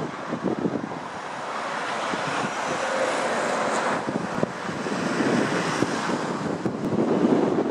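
Boeing 737-400's jet engines on approach, a steady rush that swells over the first couple of seconds and then holds, with gusty wind buffeting the microphone.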